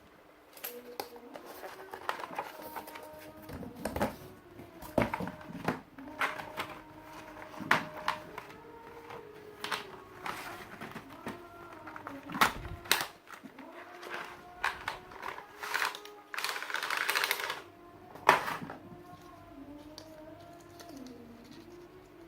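Typing on a tenkeyless mechanical keyboard with Cherry MX Red linear switches and PBT keycaps: irregular keystroke clacks, with a quick burst of rapid keystrokes about three-quarters of the way through.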